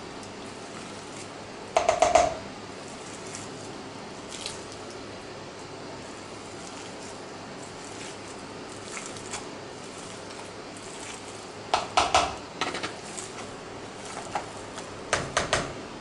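Wire potato masher mashing boiled potatoes with butter in a plastic mixing bowl, with clusters of sharp clacks as the masher strikes the bowl: about two seconds in, around twelve seconds, and again near the end, with a few lighter ticks between.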